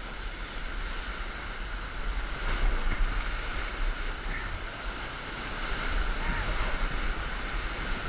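Whitewater rapids rushing around an inflatable raft: a steady hiss of churning water over a heavy low rumble of wind and water on the microphone. It grows louder about two seconds in as the raft runs into the white water, and again near the end.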